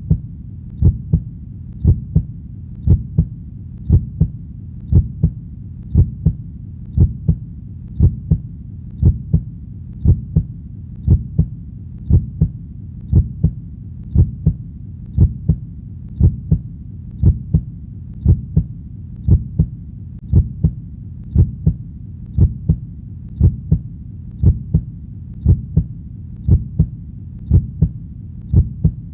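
Heartbeat, a steady lub-dub of low paired thumps about once a second, over a soft low hum.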